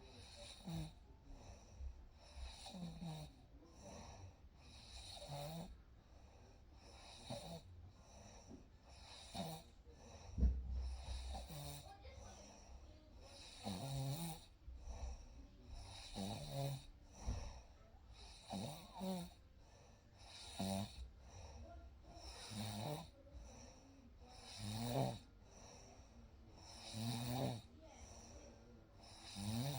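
A person snoring in a steady rhythm, one snore roughly every two seconds, with a low rumble about ten seconds in.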